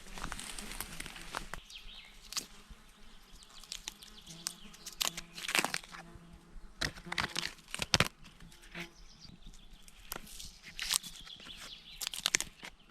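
Irregular crunching, crinkling and rustling, with scattered sharp snaps and clicks, the loudest about halfway through, typical of plant material or wood being handled and cut outdoors.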